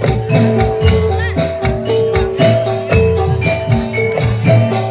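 Javanese gamelan music: metal keyed instruments ringing short repeated melodic notes over regular drum strokes, several a second.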